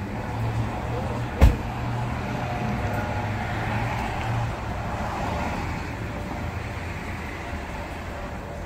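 A car door slams shut about a second and a half in, over the steady low hum of an idling patrol SUV and street traffic.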